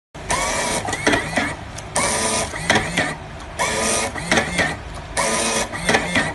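FUMA M-1000 automatic tape dispenser cycling four times, about every one and a half seconds. Each cycle is a half-second burst of the feed motor with a short rising whine, followed by a few sharp clicks as the cutter cuts the tape.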